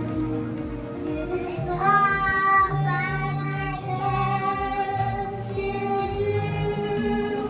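A song playing: a high voice, child-like or female, holds one long note from about two seconds in until near the end, over a bass line that changes note.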